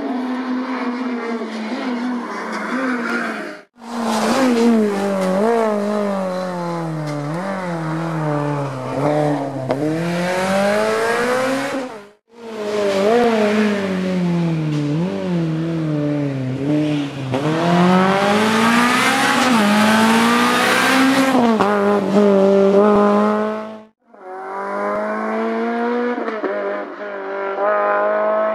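Honda Civic Type-R EP3 rally car's 2.0-litre four-cylinder engine at full stage pace, revving up under acceleration and dropping in pitch on braking and downshifts, again and again. The sound cuts off sharply three times where the shots change.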